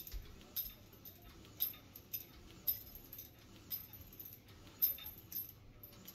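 Metal chain of a cable-machine attachment jangling in short light clinks, roughly one or two a second, as tricep pushdown reps are done.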